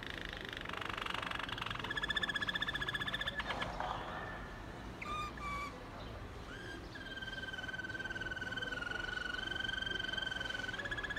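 Waterslager (Malinois) canary singing: rapid rolling trills, then one long, steady whistled note of about four seconds.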